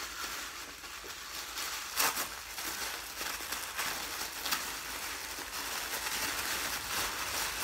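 Paper wrapping crinkling and rustling as it is pulled off a bottle by hand, a steady crackle with a few louder crunches, the loudest about two seconds in.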